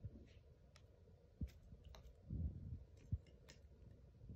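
Scattered light clicks and a few short soft knocks from handling a Sugon soldering and hot-air station, fingers on its front-panel buttons and knobs and the soldering iron being moved about.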